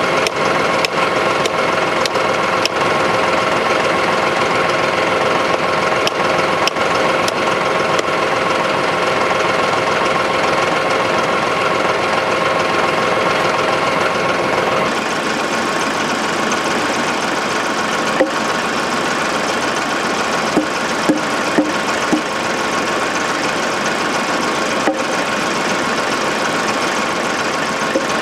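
Tractor diesel engine idling steadily, with hammer blows on a wooden fence post and brace rail: a quick run of strikes in the first few seconds, then scattered single knocks.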